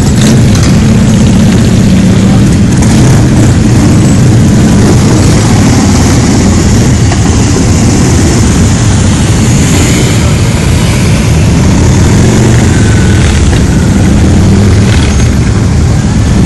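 A procession of motorcycles, mostly V-twin cruisers and choppers, riding slowly past one after another, their engines running loudly and overlapping in a continuous rumble.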